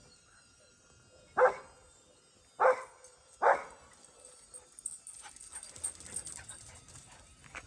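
A dog barks three times, short barks about a second apart, followed by light clicking and rustling.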